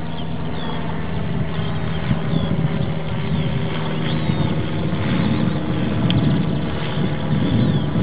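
Model airplane's motor and propeller droning steadily overhead, its hum growing rougher and more mixed with wind noise in the second half.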